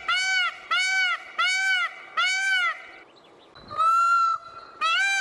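Peacock calling: a series of loud calls, each rising and then falling in pitch, about one and a half a second. Past the middle the series stops briefly for one longer call held on a single pitch, then resumes near the end.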